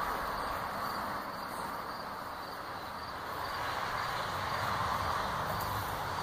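Outdoor background sound: a steady hiss with insects chirping in an even rhythm, a few chirps a second.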